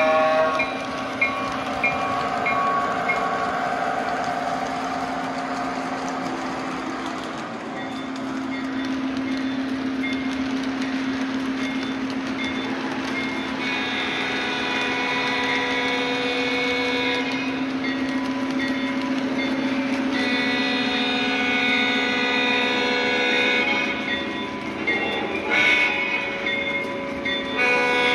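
Train sounds: a steady engine drone with a locomotive horn sounding its chord in several blasts, two long ones followed by shorter ones near the end.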